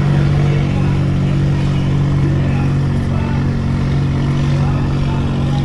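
Small engine running steadily at an even, unchanging pitch.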